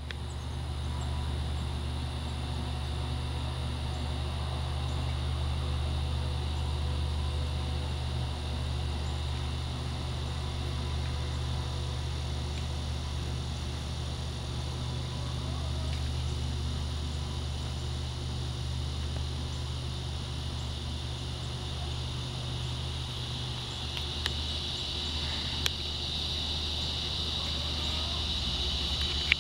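Steady outdoor ambience: a low, even rumble, with insects singing at a high pitch that grows louder about five seconds before the end. A couple of faint clicks sound near the end.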